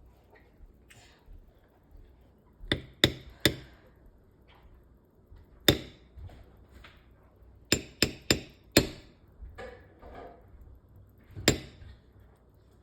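Kitchen knife striking a cutting board in single cuts: about nine sharp knocks at irregular spacing, several in quick groups of two or three.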